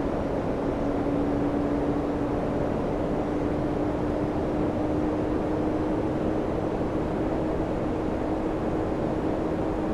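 Samsung air conditioner running: a steady rushing noise with a hum that slowly rises in pitch.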